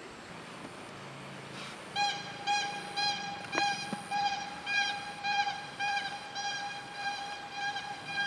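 A high, buzzy pitched tone pulsing just under twice a second, starting about two seconds in, each pulse bending slightly up and then down; only faint background hiss before it begins.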